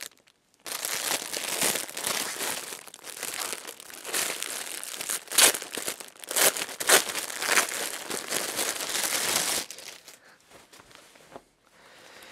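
Clear plastic packaging bag crinkling and crackling as it is opened and satin boxing trunks are pulled out of it, with many sharp crackles; the rustling stops almost ten seconds in.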